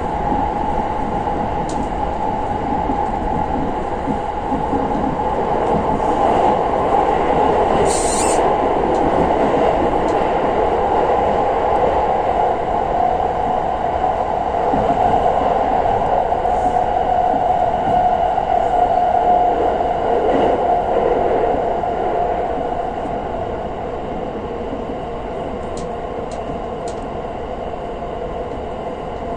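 683 series electric limited express train running at speed, heard from inside the passenger car: steady running noise of wheels and train. A brief sharp click comes about 8 seconds in, with a few faint ticks later, and the noise eases slightly past the two-thirds mark.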